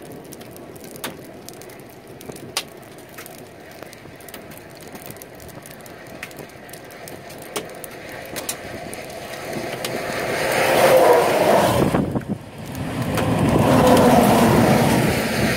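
Trucks passing close on a highway, their tyre and engine noise swelling and fading twice in the last few seconds, with a falling pitch as each goes by; the second pass is a semi tractor-trailer. Before that the road is quiet apart from a few faint clicks.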